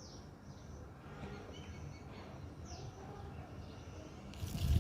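Birds chirping faintly over a low background rumble, with a short, loud rush of noise about four and a half seconds in.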